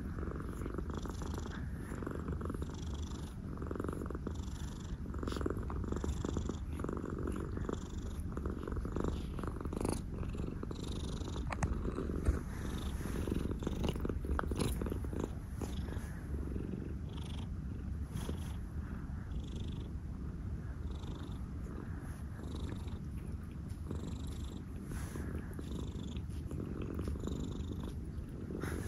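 Domestic cat purring steadily close up, the purr swelling and easing about once a second with each breath. A few small clicks here and there, one a little louder about twelve seconds in.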